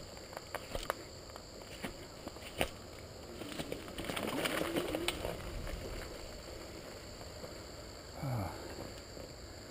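Bicycle ridden over a rough wooded dirt trail: sharp rattles and knocks of the bike over bumps in the first few seconds, then a rougher stretch of tyre noise on dirt and leaves around the middle. A short low sound with falling pitch comes about eight seconds in.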